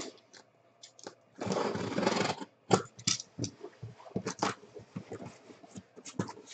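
A box cutter slicing along the packing tape of a cardboard case for about a second, then knocks and rustling as the cardboard flaps are pulled open.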